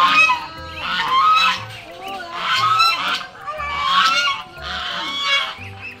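A flock of domestic geese and ducks calling loudly while feeding, with honking calls coming about once a second.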